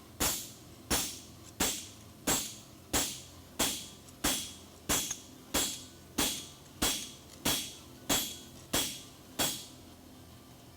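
Farrier's hammer striking an aluminum bar shoe on the anvil in a steady rhythm, about one blow every two-thirds of a second, each with a short metallic ring, flattening the shoe's ripples before fullering. The blows stop about a second before the end.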